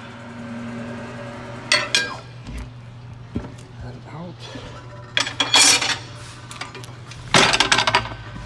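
Steel tyre iron clanking and clinking against a tyre changer's mount head and an alloy wheel rim while a tyre is levered over the rim, in three bursts of metallic clinks, the last near the end the loudest.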